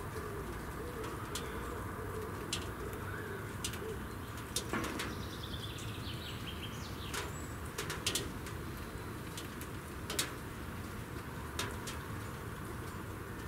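Pigeons cooing low and throaty in the first few seconds, with a short run of high chirps from a small bird about five seconds in. Several sharp clicks or taps scattered through.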